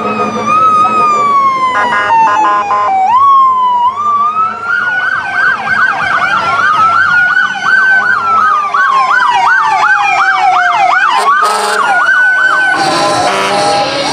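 Several emergency vehicle sirens sounding over each other as parade vehicles pass. A slow wail falls over the first few seconds, then fast yelp cycles run through the middle, and a slow wail rises again. There is a burst of rapid pulsing about two seconds in and a harsher blare near the end.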